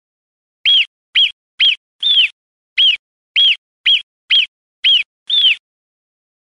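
Ground squirrel alarm calls, the sound given for a marmot: ten short, sharp, high calls in quick series, each rising then falling in pitch, with a brief pause after the fourth.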